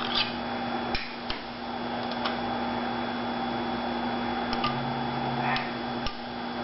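Skate sharpening machine humming steadily, with irregular light clicks and taps.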